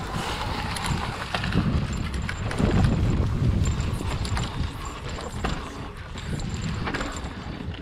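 Hardtail e-mountain bike riding downhill over a dry, leaf-covered forest trail: tyres rolling through leaves and dirt under a steady rumble, with many short clattering knocks from the unsuspended frame and drivetrain over bumps and roots.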